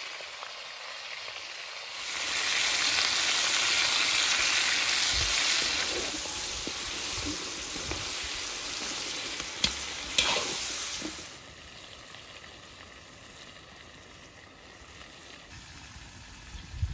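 Lamb ribs, onions and sweet peppers frying in hot fat in a cast-iron kazan: a steady sizzle that swells loudly about two seconds in as the food is stirred, with two sharp clicks around ten seconds in. After about eleven seconds the sizzle drops to a much quieter hiss.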